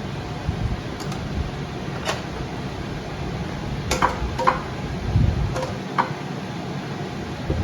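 Kitchen utensils clinking against a pan and dishes, about six separate short clinks with a brief ring, over a steady low hum.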